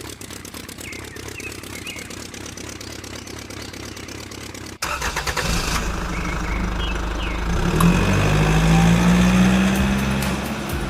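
An engine running: a quiet stretch gives way suddenly, about five seconds in, to a louder low engine hum whose pitch climbs slightly near the end.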